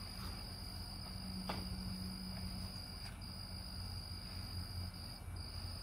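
Crickets trilling steadily, one unbroken high-pitched tone, over a low hum, with a single light click about a second and a half in.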